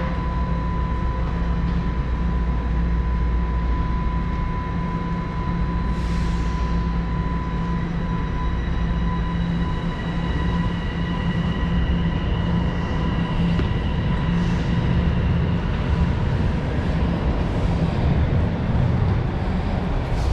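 TTC Line 1 subway train running: a steady low rumble with electric motor whine tones, some of which shift in pitch partway through, a short hiss about six seconds in, and a few knocks near the end.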